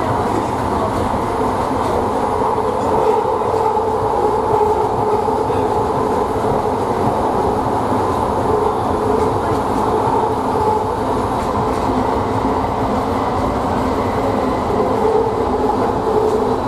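Bombardier ART linear-induction-motor light rail car running at speed, heard from inside the car: a steady rumble of steel wheels on rail with a wavering hum.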